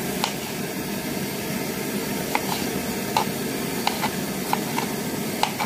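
Knife cutting tomatoes on a plastic cutting board: light, sharp taps of the blade striking the board, scattered unevenly, over a steady background hiss.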